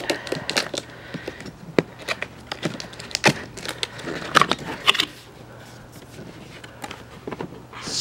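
A table knife slitting the seal on a cardboard box, then the lid being worked open: a run of irregular scrapes and clicks of blade and cardboard, sharpest a few seconds in.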